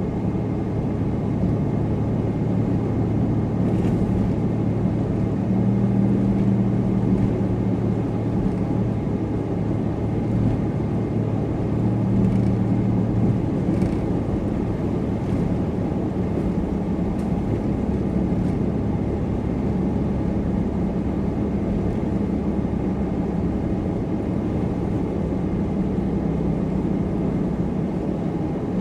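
Supercharged car driving, heard as a steady low engine drone and road noise; the engine note swells briefly twice, a few seconds in and again about halfway through.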